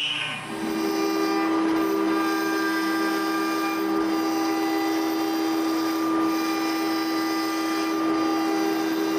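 ShopBot Desktop CNC router's spindle running at a steady speed, a loud even whine that comes up about half a second in.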